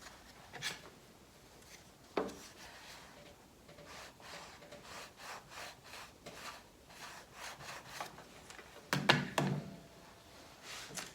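Wood rubbing and knocking as edge banding is pressed and rubbed onto small plywood blocks: a couple of light knocks, then a run of short rubbing strokes, and a louder clatter of wood about nine seconds in.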